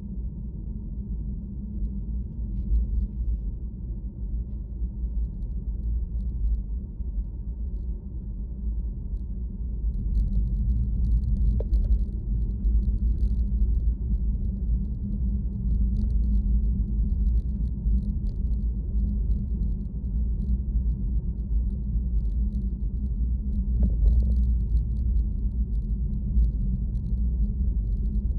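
Steady low rumble of a moving vehicle, growing louder about ten seconds in.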